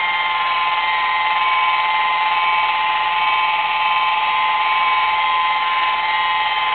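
Handheld electric polisher with a foam pad running at a steady speed on car paint, a constant whine, spreading paint sealer as the final step of a paint correction.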